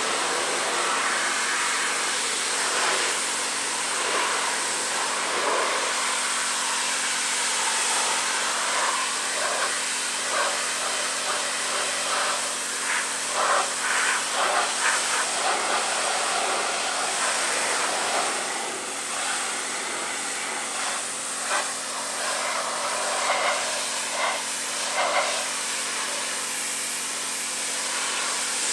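Pressure washer jet hissing steadily as it sprays a car's rear panels, with bursts of sharper spattering where the water strikes the boot lid and number plate, a cluster about halfway through and a few more later.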